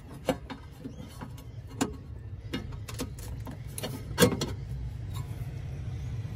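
Metal clinks and knocks as a steel battery tray is shifted and seated on its mounting points in a car's engine bay, with the loudest knock about four seconds in. A steady low hum runs underneath.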